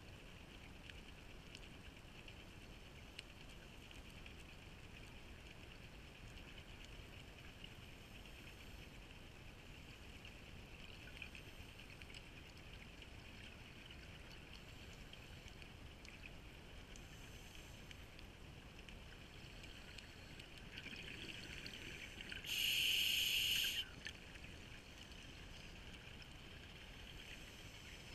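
Muffled underwater ambience through a camera's housing: a steady faint hiss with scattered light crackles. About 23 s in, a loud rush of a diver's exhaled regulator bubbles lasts about a second and a half.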